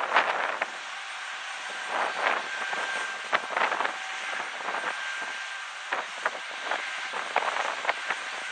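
Small twin-turbofan business jet landing, its engines running with a steady whine and a thin high tone. Irregular gusts of wind noise buffet the microphone over it.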